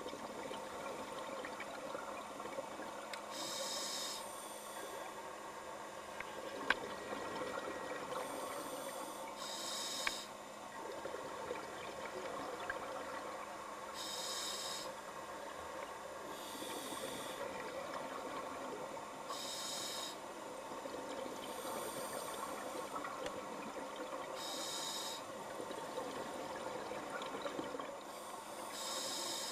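Scuba regulator breathing heard underwater: a hiss of breath every few seconds over a steady hum of water noise.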